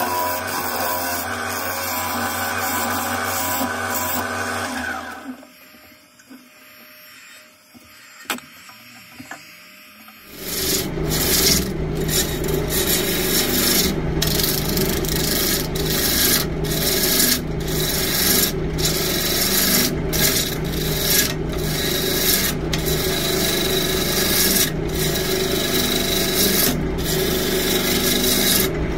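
A yew log being cut on a wood lathe: a loud, steady scraping, shaving noise from the turning tool over the hum of the lathe running, broken by short regular dips as the tool lifts between passes. It starts about ten seconds in, after background music and a quieter stretch.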